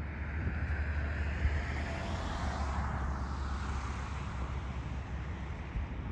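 A passing vehicle: its noise swells to a peak about three seconds in and then fades, over a steady low rumble.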